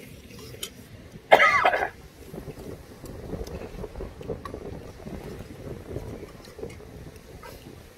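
A person clears their throat once, loudly and briefly, about a second in. Otherwise there is low background noise with a few faint clicks of spoons and chopsticks on bowls.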